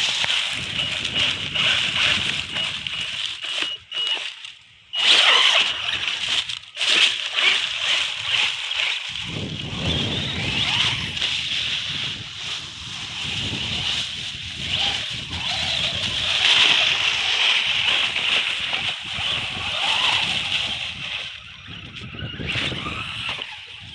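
Electric motor of a ZD Racing ZMT-10 RC monster truck whining in surges under throttle, dropping out briefly about four seconds in, with its tyres tearing through dry leaves and grass.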